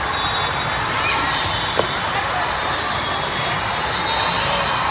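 Indoor volleyball hall din: steady background of voices and short high squeaks, with two sharp volleyball hits about two seconds in.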